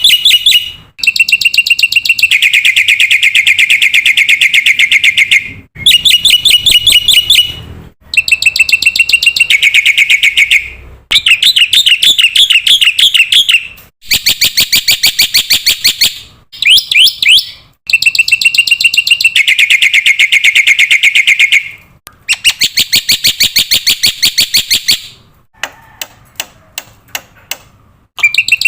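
Black-winged starling (jalak putih) singing loudly in long phrases of fast, high repeated notes, each lasting one to three seconds, with short pauses between them; near the end come a few quieter, separate chirps.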